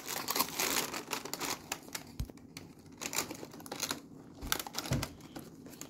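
Thin cardboard of an advent calendar door being pushed in and torn open by hand, with crinkling and irregular small clicks and rustles as fingers work the flap.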